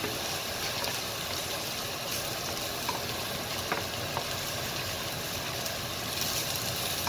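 Rice frying with sautéed vegetables and bacon in a stainless steel sauté pan: a steady sizzle, with a wooden spoon stirring through it and giving a couple of faint ticks midway. The rice is being toasted in the fat before the bean liquid goes in.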